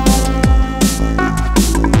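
Electronic dance music with a steady beat: kick drums sweeping down in pitch and sharp snare hits over a sustained bass line.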